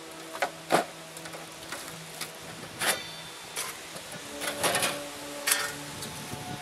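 Clicks, clanks and knocks of a thin sheet-stainless-steel tent stove being handled, set down on the ground and having its parts checked by hand, with the plastic bag it came in crackling. A faint steady hum runs underneath.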